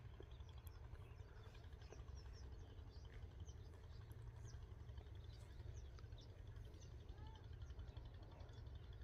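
Near silence: a low steady hum with faint, scattered bird chirps in the background.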